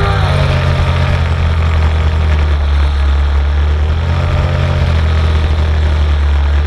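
Racing boat's engine heard onboard at close range, dropping in pitch as it eases off at the start, then running steadily at a lower speed.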